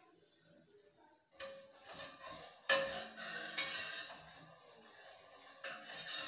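Metal clinks, knocks and scraping of a utensil against an empty frying pan as oil is spread across it. They start about a second and a half in, are sharpest a little later, and there is one more knock near the end.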